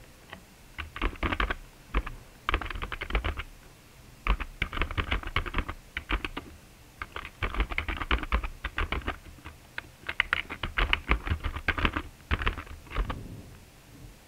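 Typing on a computer keyboard: quick runs of keystrokes in several bursts with short pauses between them, stopping about a second before the end.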